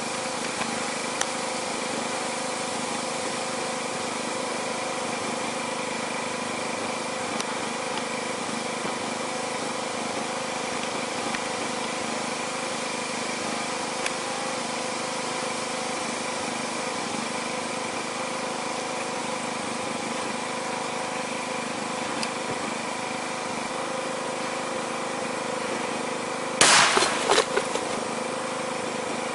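A steady mechanical hum with faint constant tones, then about 27 seconds in a sudden bang as a steering-wheel airbag module fires and deploys, with a brief rattle after it as the dummy head is knocked off.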